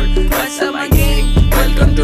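Hip-hop music with a heavy bass beat, about two kicks a second, and a vocal line over it.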